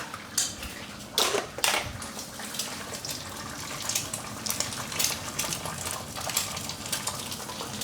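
Two eggs frying in hot oil in a pan, sizzling and spitting steadily, with a couple of louder knocks against the pan a little over a second in.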